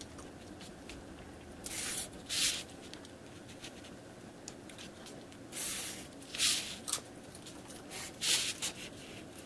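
Pencil lead drawn along a wooden ruler on paper: several short scratchy strokes, ruling the lines of a bodice dart on a paper pattern.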